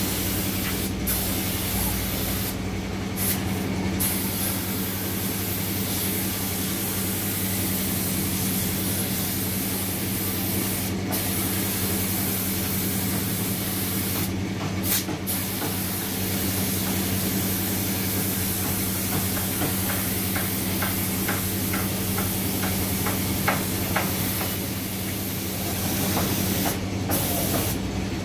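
Compressed-air spray gun hissing steadily as yellow paint is sprayed onto a tractor wheel, pausing briefly several times. A steady low hum runs underneath.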